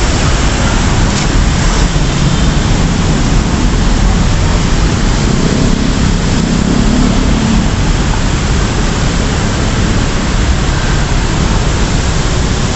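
Steady rain, a loud even hiss, over a low rumble.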